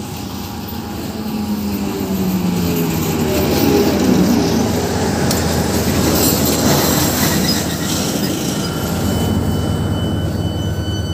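Passenger train pulling into the station and slowing, a loud rumble whose pitched running tones fall as it brakes, with a thin high squeal setting in about halfway through.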